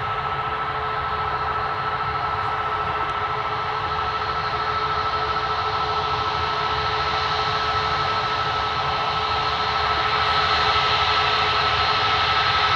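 Twin jet engines of a Boeing 737 airliner at low taxi power: a steady whine with two held tones over a rushing noise, growing slowly louder as the plane taxis closer.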